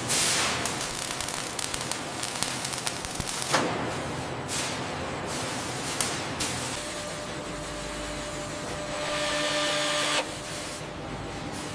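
Factory machinery running: a steady hiss with a few sharp knocks, a humming tone coming in about seven seconds in, and a louder burst of hiss that cuts off suddenly about ten seconds in.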